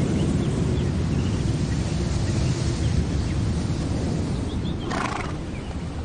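Horses, over a steady low rumble, with a brief louder noise about five seconds in.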